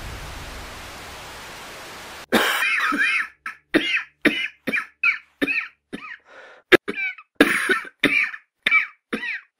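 A person's coughing fit over a dark screen: a long string of short coughs, about three a second, starting about two seconds in after a steady hiss cuts off. It is the cough of a tuberculosis sufferer.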